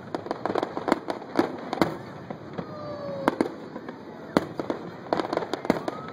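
Fireworks display: aerial shells going off in a rapid, irregular string of sharp bangs, several a second, over a steady rumble.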